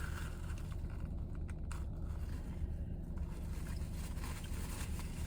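Steady low hum of a car idling, heard from inside the cabin, with a few faint small clicks about one to two seconds in.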